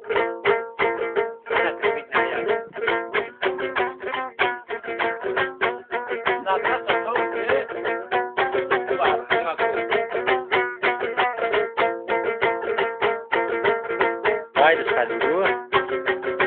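Long-necked plucked lute played solo: rapid strummed and plucked notes over a steady ringing drone.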